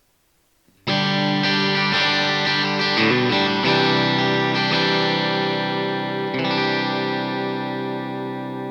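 MUSI Virgo Fusion T-style electric guitar playing chords through an amplifier with effects: a chord comes in suddenly about a second in, changes a few times, and a last chord struck about six seconds in rings out with a slow, even wavering.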